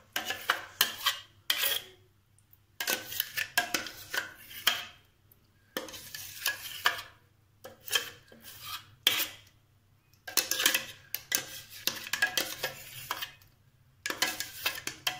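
A metal spoon scraping and tapping thick blended milk-cream paste out of a mixer-grinder jar into an aluminium kadai. It comes in bursts of quick scrapes and clinks with short pauses between them, over a faint steady hum.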